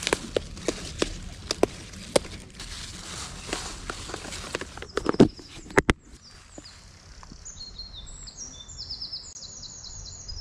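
Crisp snapping and rustling of wild garlic leaves being picked by hand, with a sharp click just before six seconds in as a plastic food box is handled. After that, songbirds sing series of high, quick chirping notes.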